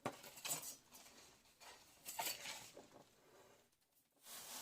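Faint handling noise as a tea kettle and its packaging are unpacked: scattered rustles and a few light knocks and clinks.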